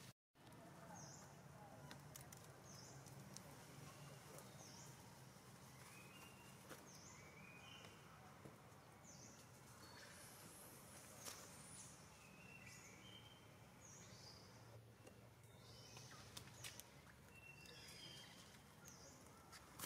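Faint outdoor ambience: short high chirps, like small birds, repeat every second or two, with a few soft clicks over a low steady background.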